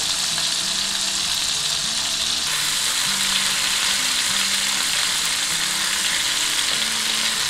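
Pieces of cream-marinated chicken tikka sizzling steadily as they shallow-fry and sear in hot oil in a pan.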